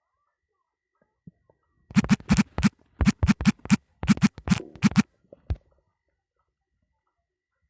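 Stomach gurgling picked up close to the microphone: a rapid run of about fifteen loud, scratchy pops over about three seconds, then one last pop about half a second later.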